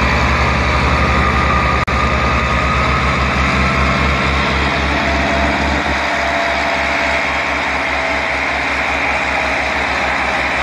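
Diesel tractor engine running hard under heavy load, with a steady low beat about six times a second. It is straining to pull a trolley loaded with sugarcane, heavy enough to lift the tractor's front wheels off the ground.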